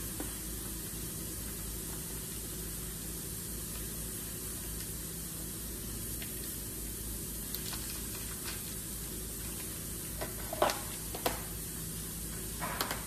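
Steady background hiss. From a little over halfway through come a few sharp clicks and rustles, the loudest near the end, as new ACL main bearing shells are taken out of their box and plastic wrapping.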